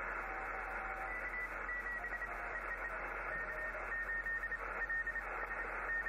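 Static hiss from a Yaesu ham radio transceiver's speaker, cut off sharply at the top by its receive filter. Short, broken steady tones come and go through it, mostly high-pitched with a few lower ones: an unidentified signal on the band.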